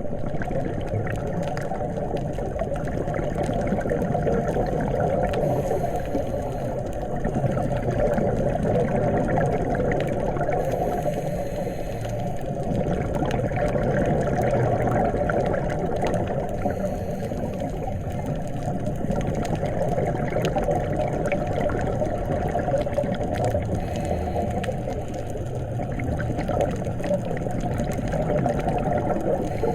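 Underwater ambience picked up through a camera's housing: a steady, dense water noise with slow swells in loudness.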